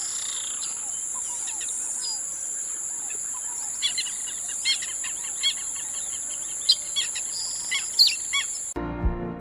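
Several birds chirping in short, quick, repeated calls over a steady high-pitched insect buzz. Everything cuts off abruptly near the end.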